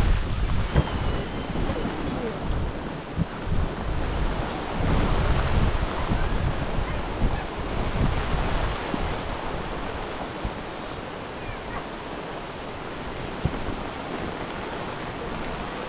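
Strong wind gusting over the microphone: a steady rushing with uneven low buffeting that eases off somewhat in the second half.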